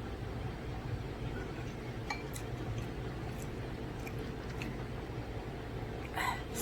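Someone eating spicy instant noodles: quiet chewing with scattered small clicks of a utensil against the dish, over a steady low background hum. Near the end there is a short, louder breath.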